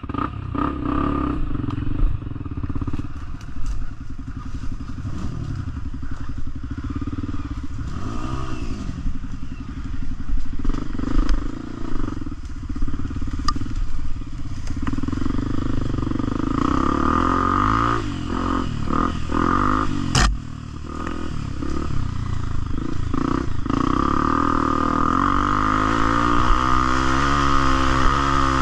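Trail motorcycle engine running under way, its pitch rising and falling as the throttle opens and closes, with a few sharp knocks; the sharpest comes about twenty seconds in.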